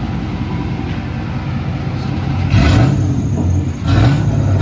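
GMC truck's engine running through its newly repaired exhaust with a steady low rumble, then revved twice, about two and a half and four seconds in, the pitch rising and falling each time. The exhaust leak has just been fixed.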